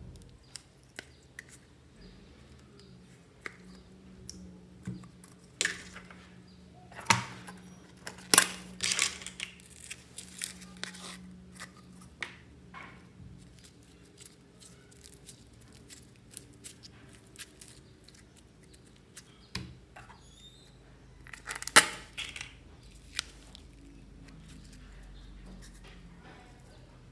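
Slime being squished and stretched by hand, giving irregular sticky clicks, pops and crackles, with the loudest clusters about a quarter of the way in and again near three quarters through.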